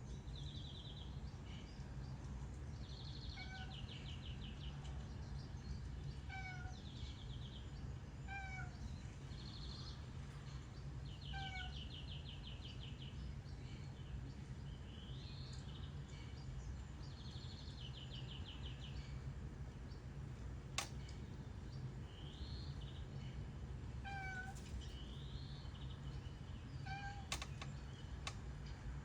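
A domestic cat giving repeated short, chirping meows while it watches the television. High, fast trills and rising chirps come from the TV's sound, over a steady low hum.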